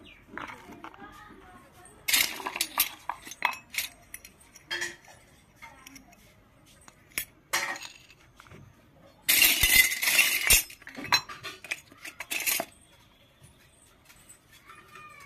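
Miniature steel and plastic toy kitchenware clinking and rattling as it is handled and set down on a concrete floor. There are scattered clicks about two seconds in and again near the middle, and the loudest, densest rattling comes about nine to twelve seconds in.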